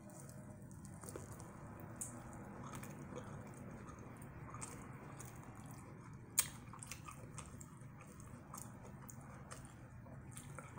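Close-up chewing and biting of crumb-battered fried corn, faint and moist, with small crackly clicks throughout and one sharper click about six seconds in.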